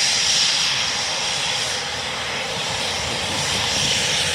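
Eurofighter Typhoon's twin Eurojet EJ200 turbofans running at taxi power as the jet rolls past: a steady, loud jet whine and hiss.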